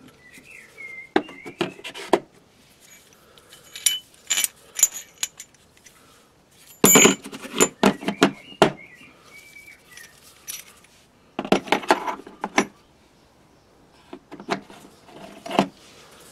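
Steel parts of a brake caliper piston wind-back tool kit clinking and knocking as they are handled and set into the plastic carry case. The sound comes in about five short bursts of clatter, the loudest about seven seconds in.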